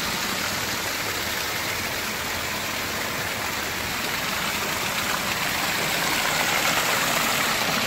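Running water in a stone channel: a steady, even rush without separate splashes or drips.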